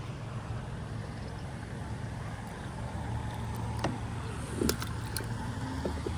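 Steady low engine-like rumble, with a few faint clicks a little past the middle.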